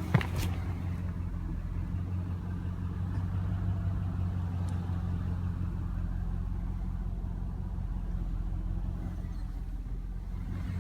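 2007 Chevrolet Avalanche's V8 engine idling steadily, with one short click just after the start.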